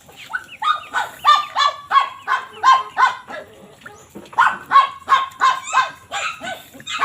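A dog barking rapidly and repeatedly, about three short barks a second, with a brief pause about halfway through.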